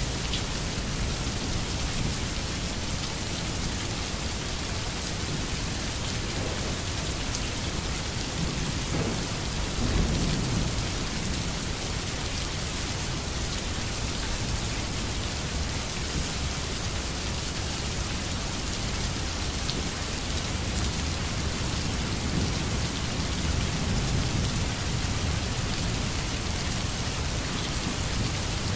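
Steady heavy rainfall, an even hiss of rain on surfaces, with low rolls of distant thunder swelling about ten seconds in and again near the end.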